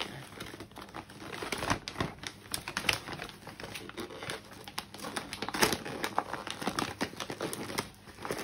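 Patterned gift-wrap paper crinkling and rustling as a child pulls it open, a dense run of irregular sharp crackles.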